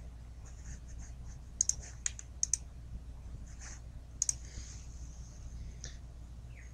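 A few sharp clicks of a computer mouse and keyboard, some in quick pairs, over a faint steady low hum.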